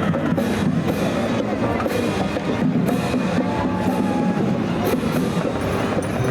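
High school marching band playing, with pitched instruments over a drumline and repeated sharp drum and cymbal hits.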